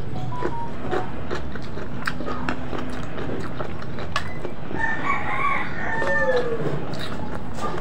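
A rooster crowing once, beginning about five seconds in and ending on a falling note. Soft clicks of eating by hand from a plate and a steady low hum run underneath.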